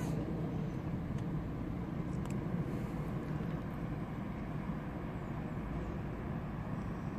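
Steady low rumble of distant road traffic, with a few faint clicks.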